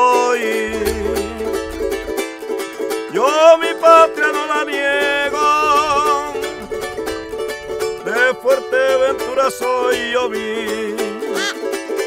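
Background music: plucked string instruments over a steady held drone, with a melody that slides and wavers in pitch.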